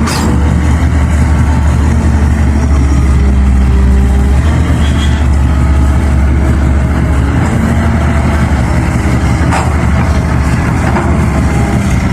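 Excavator's diesel engine running steadily with a heavy low rumble, with a few brief metallic knocks: one at the start, one about nine and a half seconds in and one near the end.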